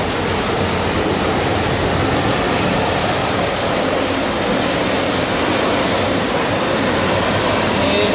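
Water from an overflowing dam spillway pouring over a concrete sill and churning into foam below, a steady loud rush.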